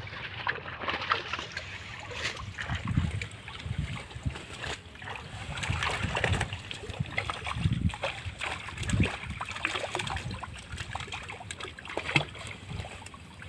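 Water splashing and sloshing irregularly as a fine-mesh seine net is hauled and bunched up in shallow water with fish trapped in it.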